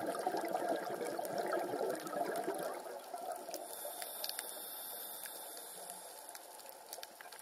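Muffled underwater bubbling, as from a scuba diver's exhaled air, loudest for the first couple of seconds and then fading, with scattered faint clicks.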